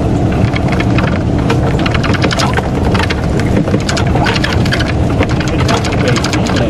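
A motor vehicle's engine running with a steady low hum, under a dense, irregular clatter of rattles and clicks.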